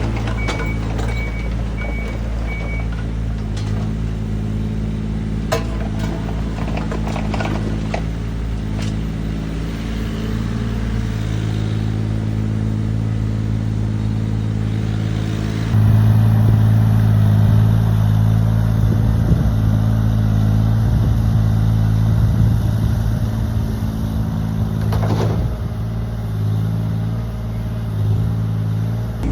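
Mini excavator's diesel engine running steadily while it works, with a few sharp clunks in the first half. A beeping alarm sounds about twice a second near the start, and the engine is louder from about halfway on.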